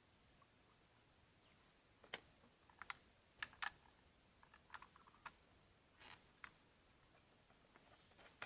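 Near silence broken by scattered faint clicks and light taps, about a dozen of them spread over a few seconds.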